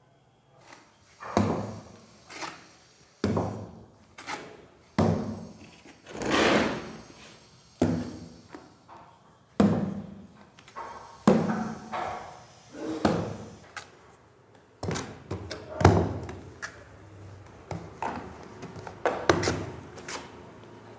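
Trowel scooping epoxy adhesive from a plastic bucket and slapping and spreading it onto the back of a marble slab: a run of knocks and thuds, about one a second.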